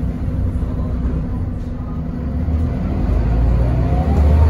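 Mercedes-Benz O405NH bus's rear-mounted six-cylinder diesel engine heard from inside the cabin, running steadily, then revving up about three seconds in with a rising whine as the bus pulls away.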